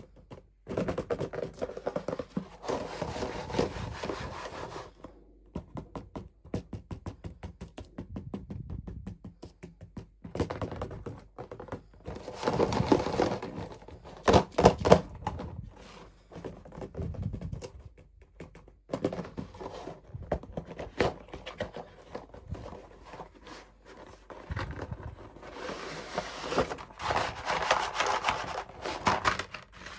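Toy packaging being handled and opened by hand: rustling and crinkling in several stretches, with many sharp taps and clicks in between.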